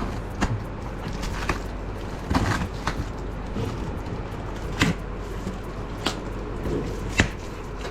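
A cardboard shipping box being opened and handled by hand: scattered knocks and scrapes, about six sharp ones spread through, over a steady low hum.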